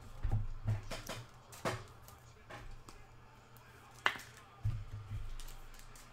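Trading card being handled on a tabletop: a handful of sharp clicks and taps, the sharpest about four seconds in, mixed with a few dull thumps.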